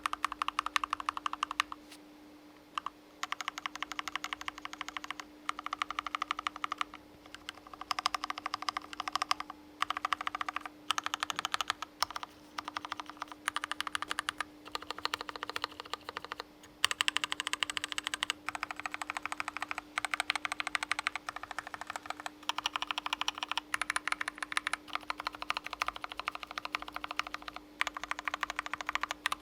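Typing on an aluminium top-mount mechanical keyboard: rapid key clicks and clacks in runs of a second or two, broken by brief pauses. A faint steady hum sits under the typing.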